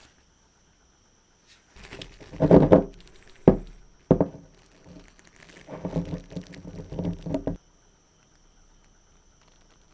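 Irregular bursts of handling noise, with scuffing, rustling and one sharp knock about three and a half seconds in.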